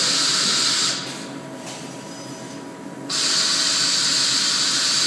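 Loud hiss from a robotic ultrasonic welding cell. It cuts off about a second in and starts again about two seconds later, over a faint steady machine hum.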